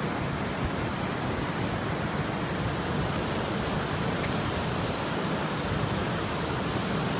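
Floodwater of a creek running high and rushing over a low-water road crossing: a steady, unbroken rush of water.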